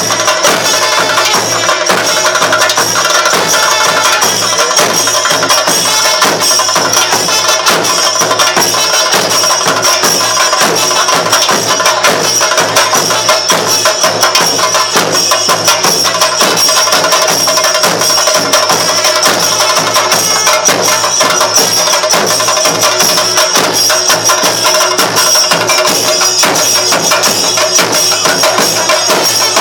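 Kerala temple festival percussion accompanying a jeevatha dance: drums with jingling metal cymbals, playing loud, fast and without a break.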